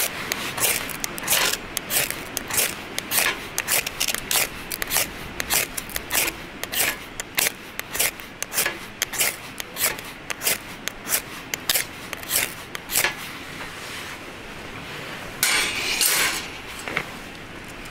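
Ferrocerium fire-starter rod struck again and again with a scraper, a quick run of sharp rasping scrapes about two a second, throwing sparks into tinder that does not catch. After a short pause, one longer scrape near the end.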